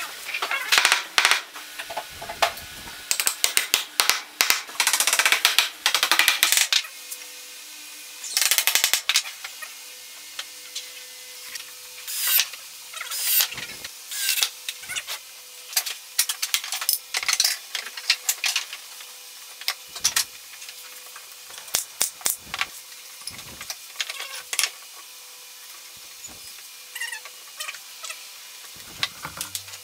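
Workshop assembly sounds of a wooden chair frame: a string of sharp knocks and clicks as wooden parts are fitted and tapped together, with several short bursts of a cordless drill driving screws. A faint steady hum runs underneath.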